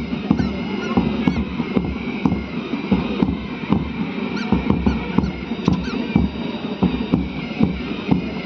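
Indian Army military band playing a march, with drum beats about once a second under held high notes.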